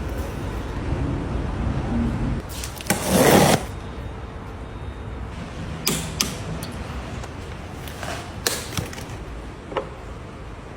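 Handling noises: a loud rustling scrape about three seconds in, then a few sharp clicks and knocks.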